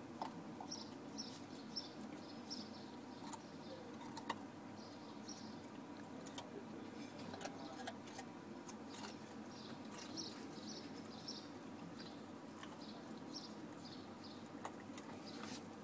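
An animal crunching on a carrot: scattered sharp, crisp snaps. Small birds chirp in short quick runs in the background.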